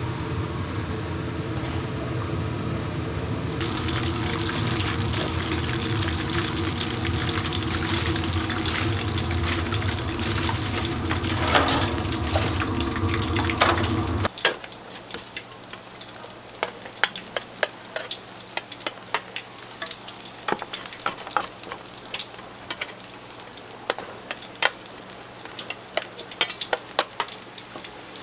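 Food frying in hot oil, sizzling and crackling over a steady machine hum. About halfway through, the hum and the heavy sizzle cut off abruptly, leaving lighter crackling with sharp pops and clicks.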